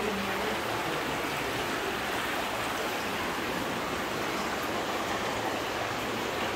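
Steady rush of running water from an underground cave stream, an even noise with no breaks.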